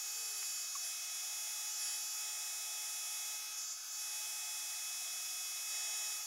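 Makeblock Laserbox Pro laser cutter running while it cuts cardboard: its ventilation fan, air pump and gantry motors make a steady whir with several high whining tones, sped up in a time-lapse.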